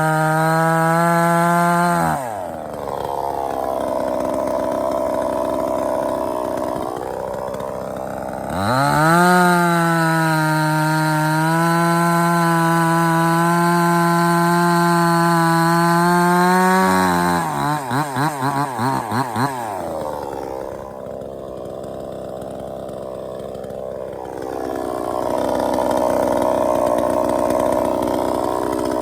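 Sungel 58 cc two-stroke chainsaw working through wood. It runs at full throttle in a high, steady tone, then drops in pitch as the chain is loaded in the cut, about 2 s and again about 17 s in. A few quick pulses in speed come just after the second drop, and the saw runs lower and rougher after that.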